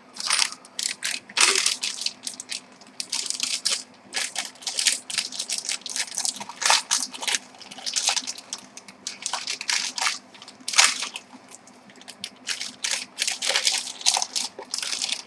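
Irregular crinkling and crunching of packaging being handled during an unboxing, in quick uneven bursts with a couple of short lulls.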